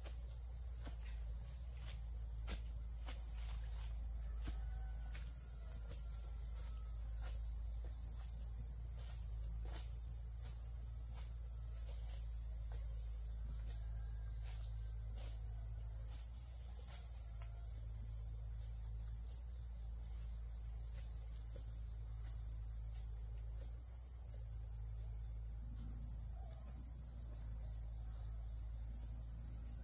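A steady high-pitched insect chorus drones over a low, steady rumble, with irregular light clicks and knocks through the first half.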